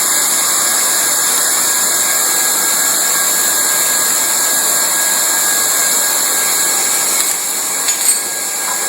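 Hot-air plastic welding gun used for vinyl seam welding, its blower running with a steady hiss. A couple of small knocks come near the end.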